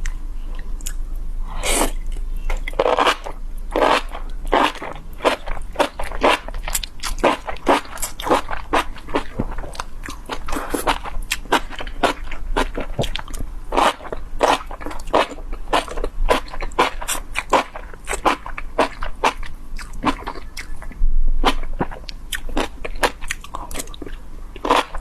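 Close-miked chewing and biting of spicy enoki mushrooms: a steady, irregular run of crunchy, wet mouth sounds, about two or three a second.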